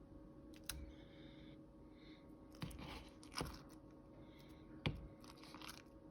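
A spoon scooping cottage cheese and knocking against its container: a few sharp knocks and scrapes, the loudest nearly five seconds in, over a faint steady hum.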